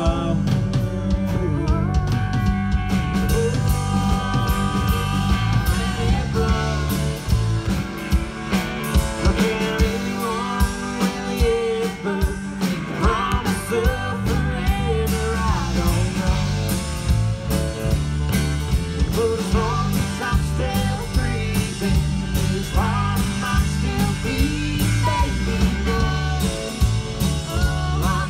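Live band playing a song at full volume: drum kit keeping a steady beat under electric and acoustic guitars and bass, with a voice singing the melody over it.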